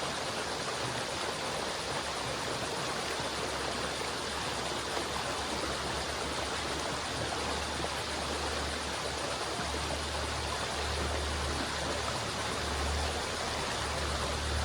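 River water flowing in a steady rush, with a low rumble that swells in the second half.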